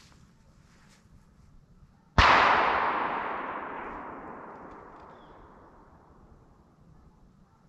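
A single shotgun shot about two seconds in, its report echoing and dying away over about four seconds.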